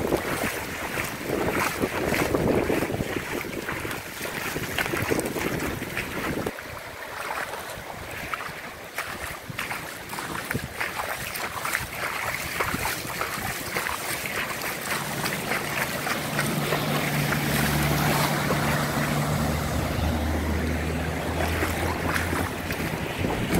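Muddy floodwater running across a street, with gusts of wind buffeting the microphone. A low steady hum joins in over the last several seconds.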